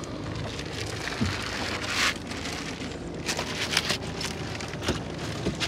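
Water splashing and dripping as a wet nylon gill net and a freshly caught fish are handled in the bottom of a wooden boat. There are louder splashy rustles about two seconds in and again past the middle, over a steady low hum.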